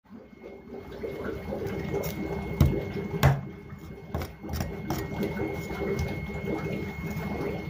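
Cleaver blade scraping scales off a whole fish on a wet wooden board, a rough rasping with many small clicks. Two loud knocks about two and a half and three and a quarter seconds in, as the fish and blade strike the board.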